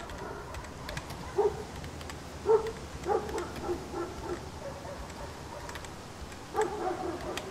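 Dog barking in short groups of barks, with a pause in the middle and another group near the end.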